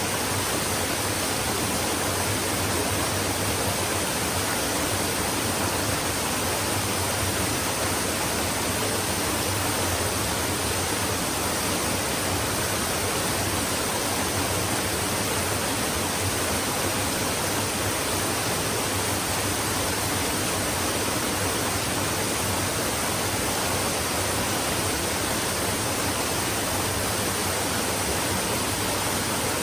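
Flowing stream running steadily: an even rush of water with no separate splashes, drips or changes.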